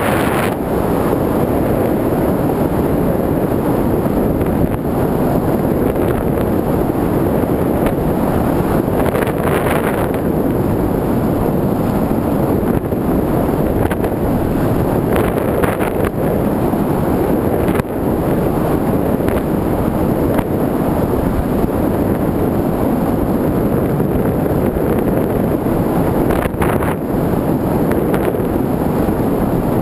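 Loud, steady rush of airflow over the microphone of a camera mounted on a model aeroplane in flight.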